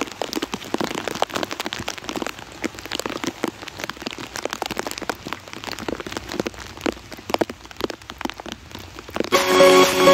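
Heavy rain falling, a dense patter of drops close to the microphone. Electronic music comes in near the end.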